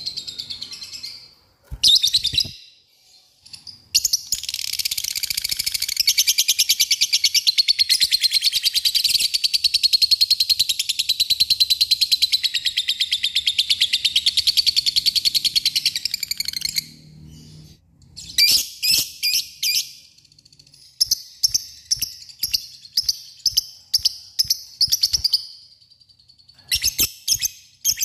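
Lovebird singing. A few short chirps open it, then one long, very fast chattering trill lasting about thirteen seconds, the prized 'ngekek panjang'. After that come short bursts of quick ticking chatter, the 'ngetik' call.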